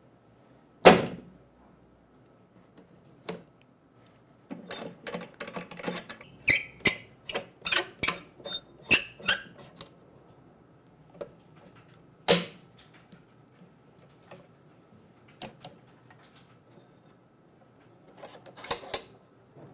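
Metal clamp bars and knobs of a phone back-cover separator machine being handled and tightened: a sharp knock about a second in, a quick run of clicks and knocks for several seconds, another single knock, and a short rattle near the end.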